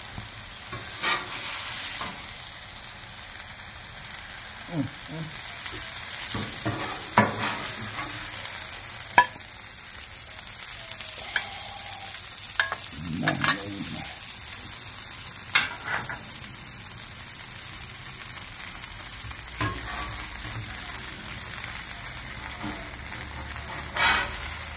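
Onion smash burgers sizzling on a Traeger Flatrock flat-top griddle: a steady frying hiss, broken by occasional sharp scrapes and clicks of a metal spatula on the steel cooktop.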